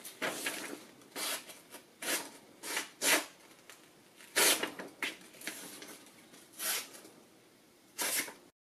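A chipped knife edge slicing into a sheet of paper, in about ten short, irregular scratchy strokes with paper rustling between them; the edge drags and snags rather than cutting cleanly, the sign of a chipped, dull edge.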